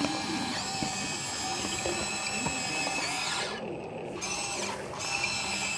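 Small electric gear motors of a remote-control toy excavator whining steadily. The higher whine drops out briefly about three and a half seconds in.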